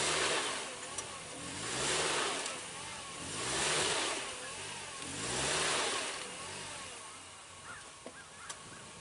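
Off-road vehicle's engine revving in repeated surges about every two seconds, its pitch rising and falling each time, with a rush of noise from the spinning wheels at each surge. The revving eases off near the end.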